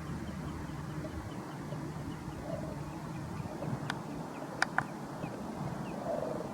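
Cormorants calling in the background with low croaks over a steady low rumble, and a row of faint short high chirps. Three sharp clicks come near the middle, the last two close together and loudest.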